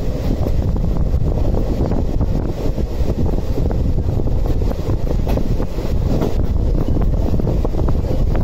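Indian Railways express train running through a station at speed, heard from the open coach door: a steady heavy rumble of the wheels on the rails with many small clicks, and wind buffeting the microphone.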